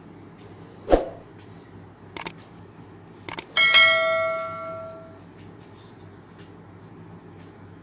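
A thump, two quick double clicks, then a single bell-like chime that rings out and fades over about a second and a half: the start-up tone of a DIY mini Bluetooth speaker being switched on, before its Bluetooth-mode prompt.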